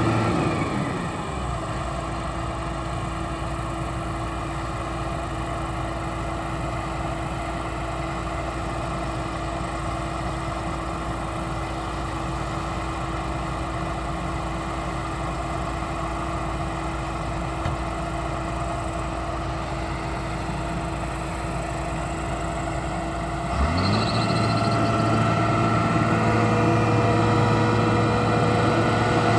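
Diesel engines of two John Deere tractors working under load to tow a John Deere combine stuck in mud. The engines ease off to a steady lower running note about a second in, then rev up again with a rising pitch near the end and hold there.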